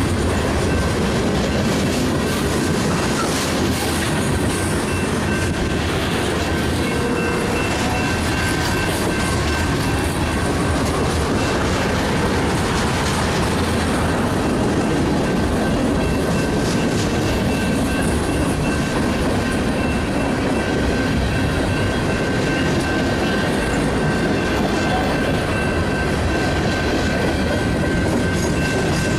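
Freight cars of a manifest train rolling past, a steady rumble with wheels clicking over the rail joints and a thin, steady high squeal from the wheels.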